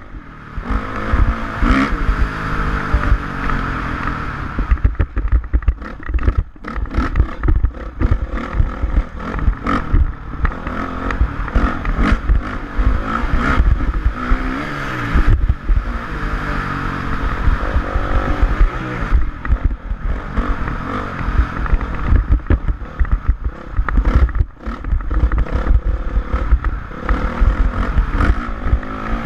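Honda CRF450R single-cylinder four-stroke motocross bike revving up and down again and again as it is ridden, with heavy rumble and clatter over the engine.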